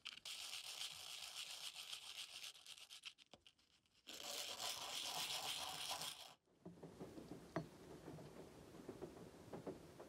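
A small metal part from an antique coffee grinder rubbed by hand across sandpaper: two bouts of dry, scratchy sanding with a short pause between them. The sanding stops about six seconds in, and quieter rustling with a few light clicks follows.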